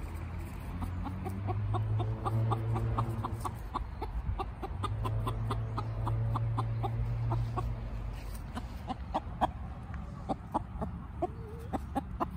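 A hen clucking in a long run of short, evenly spaced clucks, about five a second, with a low steady hum underneath at times.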